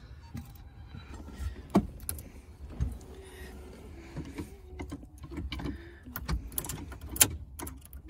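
Handling noise: scattered light clicks and knocks, a few of them sharper taps, as small hand tools and the ignition key are picked up and moved around the opened steering column.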